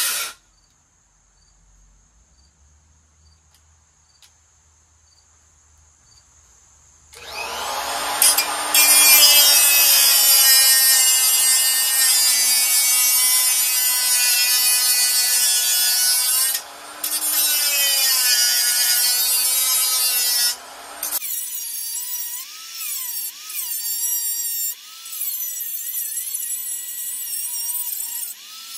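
Small corded angle grinder with a cutoff wheel cutting sheet metal. It stops right at the start and is near silent for several seconds. It starts again about seven seconds in and runs loud, its pitch sagging and recovering as the wheel bites, with two short breaks. From about two-thirds of the way through it runs quieter with a wavering whine.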